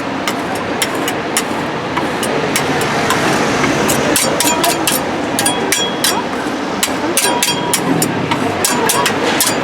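Metal spatulas clicking and tapping on a rolled-ice-cream cold plate as fruit and ice cream are chopped, the taps coming thicker and faster about halfway through, over steady street noise.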